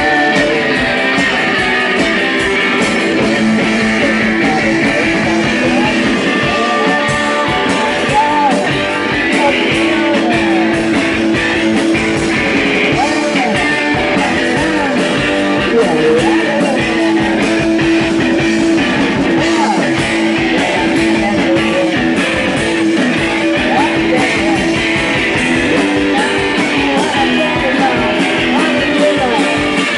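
Live rock band playing, electric guitars to the fore over drums.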